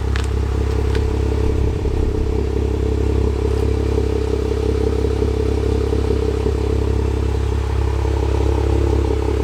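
2017 Jeep Wrangler JKU's 3.6-litre V6 idling steadily through a MagnaFlow cat-back exhaust, with a couple of small clicks about a second in.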